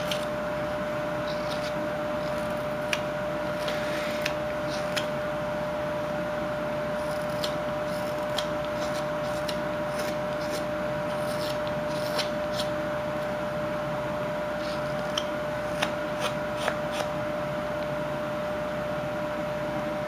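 A small whittling knife paring a wooden carving, making scattered short scraping and slicing cuts, most of them in the middle stretch. Under it runs a steady, even background hum.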